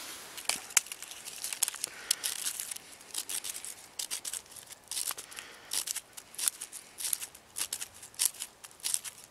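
Small twigs snapping and birch bark crinkling as they are broken up by hand for kindling: a string of short, sharp cracks at an uneven pace, about two a second.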